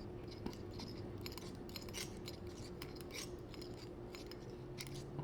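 Monofilament fishing line being wound by hand onto a reel spool: a string of light, irregular scratchy rubbing and rustling strokes, over a faint steady hum.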